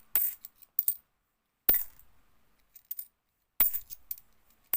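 50p coins clinking against other coins as they are handled and dropped onto a pile: several sharp metallic clinks at irregular intervals, about a second or two apart, with lighter ticks between.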